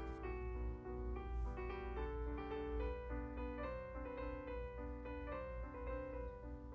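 Background instrumental music: a piano melody of single notes moving up and down.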